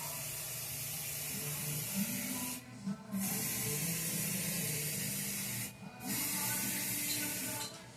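Aerosol spray paint can hissing as white paint is sprayed in long passes, cut off briefly twice, about two and a half and six seconds in.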